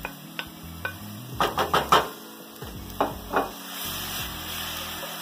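Wooden spoon knocking and scraping on a plate and stainless steel sauté pan, a quick run of sharp taps in the middle, as chopped onion, garlic, celery and basil go into hot olive oil. Near the end the oil starts to sizzle steadily as the vegetables are stirred.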